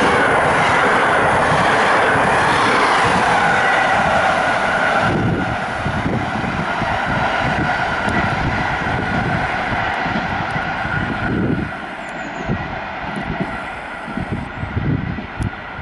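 Passenger train of PKP Intercity coaches passing close at speed, a loud rush of wheels on rail that eases after about five seconds and fades further as the train moves away. A steady high ringing tone hangs on as it recedes.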